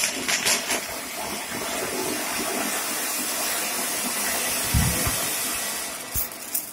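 A flower pot (anar) ground fountain firework hissing steadily as it sprays sparks, with a few crackles in the first second. There are two dull thumps in the second half, and the hiss dies down near the end.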